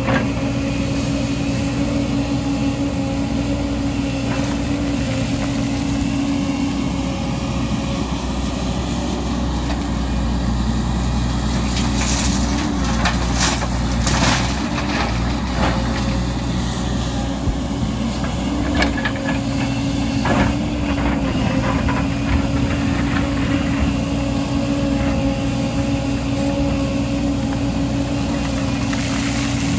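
Diesel engine of heavy earthmoving machinery running steadily with a held whine. A few sharp clanks and knocks come about halfway through and again a little later.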